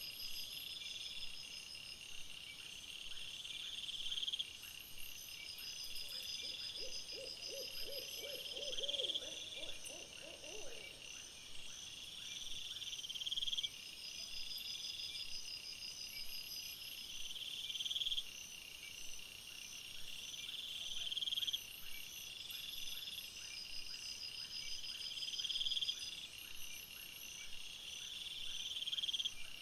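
Night chorus of crickets chirping in high, steady trills. From about six to eleven seconds in, a short run of about ten quick, low calling notes from an animal, rising slightly in pitch.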